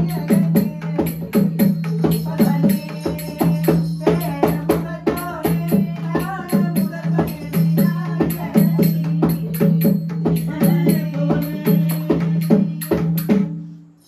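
Two-headed barrel hand drum played with fast rhythmic strokes for a leather shadow-puppet show, its deep tuned tone ringing under each stroke, with a voice over it and a high metallic jingle keeping time. The playing stops just before the end.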